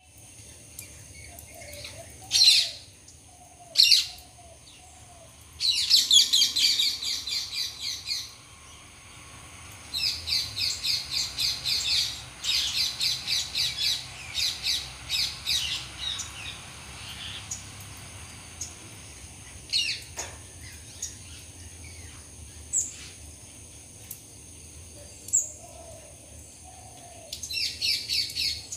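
Rose-ringed parakeets calling: single shrill screeches and long runs of rapid, harsh chattering notes, several a second.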